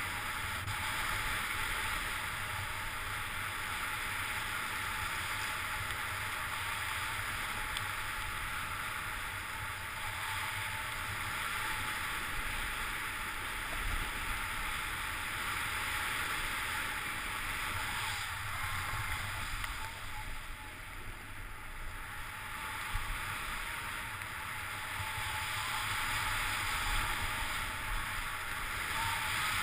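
Steady rushing hiss of riding downhill through fresh snow at speed, with wind rumbling on the camera's microphone; it eases off briefly about twenty seconds in.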